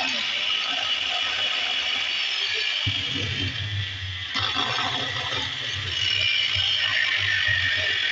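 Bosch angle grinder running steadily under power, its motor having a faulty armature. A low hum joins the running sound about three seconds in.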